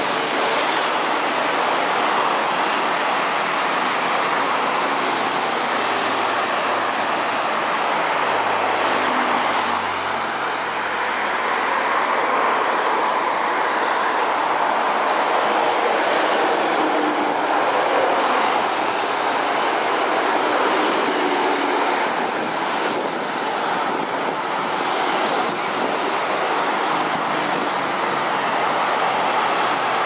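Continuous traffic noise from cars, buses and lorries passing on a busy road, mostly tyre noise with a deeper engine drone about eight to twelve seconds in.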